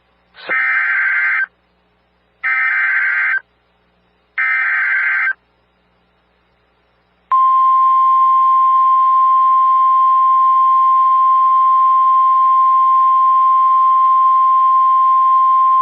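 NOAA Weather Radio emergency alert. First come three SAME header data bursts, each a harsh buzzing screech about a second long with short gaps between them. After a pause of about two seconds, the long, steady, single-pitch 1050 Hz warning alarm tone begins and is still sounding at the end. The tone heralds a warning broadcast, here a severe thunderstorm warning.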